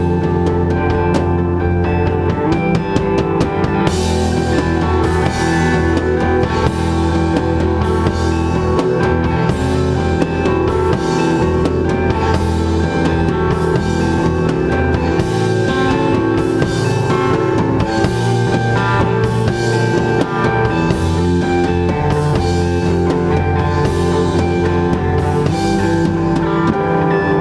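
Instrumental band playing live: electric guitars over a drum kit, loud and continuous, with cymbal crashes about once a second from about four seconds in.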